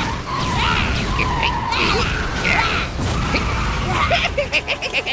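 Animated-series soundtrack: dramatic music mixed with sound effects, then a character laughing in quick bursts near the end.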